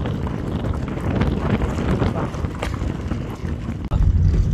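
Car driving on a gravel road, heard from inside the cabin: a steady low rumble of engine and tyres with constant crackling of gravel under the wheels. The rumble grows louder about four seconds in.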